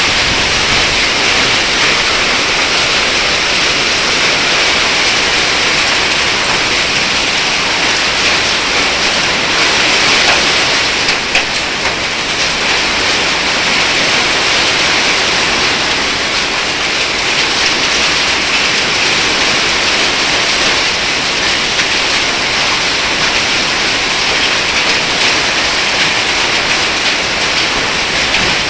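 Heavy rain pouring steadily in a storm, an even, unbroken hiss.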